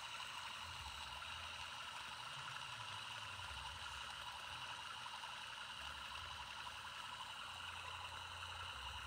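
Steady background noise: an even hiss with a low rumble underneath that swells and fades, and no distinct sounds standing out.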